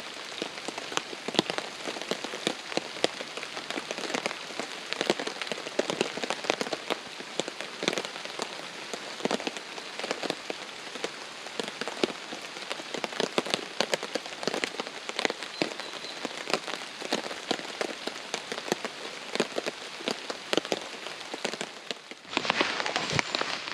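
Heavy rain drumming on a tarp, a dense patter of individual drop hits. Near the end the sound changes abruptly to a denser, steadier hiss.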